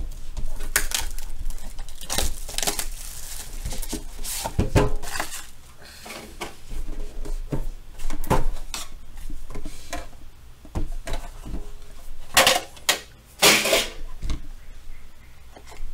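Hands handling a trading-card box on a table. The outer sleeve scrapes and rustles as it slides off, followed by scattered taps and knocks as the box is moved and set down, with two sharper knocks about a second apart near the end.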